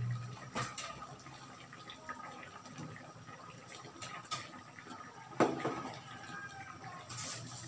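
Coconut-milk broth with milkfish bubbling at a simmer in a wok, with one sharp knock about five seconds in.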